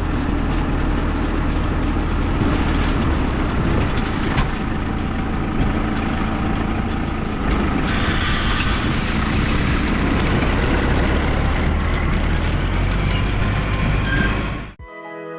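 Tractor running: a steady low engine drone under a dense mechanical noise with scattered clicks, which cuts off abruptly near the end.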